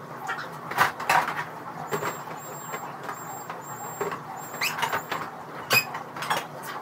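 Containers and food items being handled and set down while clearing out a refrigerator: irregular knocks, clatters and rustles over a steady low hum, with a faint high beeping tone in short dashes in the middle.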